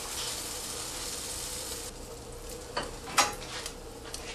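Slice of egg-battered bread frying in a pan, a steady sizzling hiss. Two short clicks come about three seconds in.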